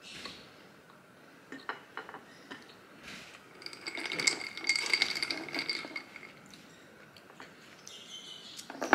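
A milky drink stirred briskly in a drinking glass for about two seconds, the stirrer clinking rapidly against the glass and setting it ringing. There are a few light taps before it and one sharp knock near the end.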